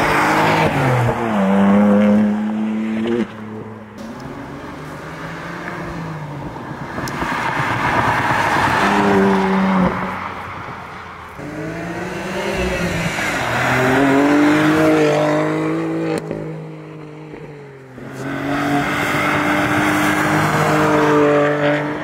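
BMW M2 Competition's twin-turbo inline-six accelerating hard as the car drives by. Its pitch climbs and drops back several times as it pulls through the gears.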